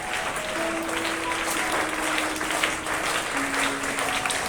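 Audience clapping steadily, with instrumental background music of long held notes underneath.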